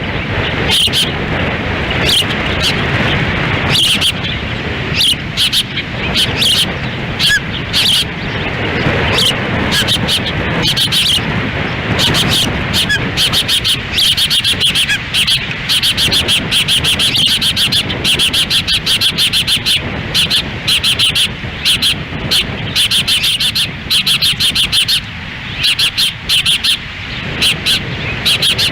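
Ospreys calling at the nest in rapid series of short, high chirps, coming in bursts, over wind rumbling on the microphone.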